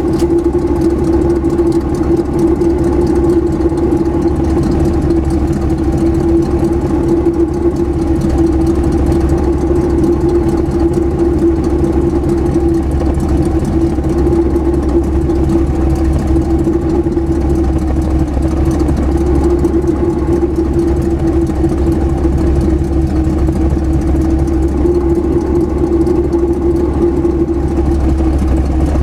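Truck engine idling steadily, with a strong steady mid-pitched hum over the low rumble.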